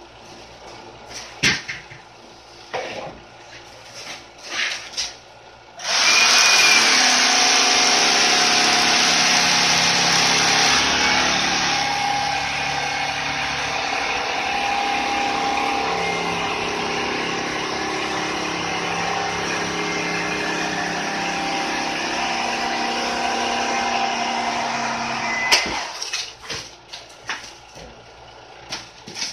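A corded handheld power tool, worked against a rigid foam insulation board, switches on about six seconds in and runs steadily with a motor hum and hiss for about twenty seconds, then cuts off suddenly. A few scattered knocks come before and after it.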